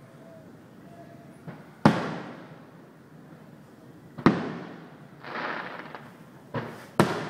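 Aerial firework shells bursting: three loud booms about two and a half seconds apart, each fading out over about a second. A softer pop comes shortly before the second and third booms, and a crackling hiss follows the second boom.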